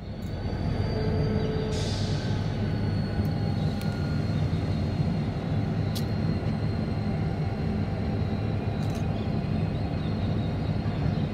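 Diesel locomotives 8111 and 8122 at the head of a grain train, their engines running with a steady low rumble.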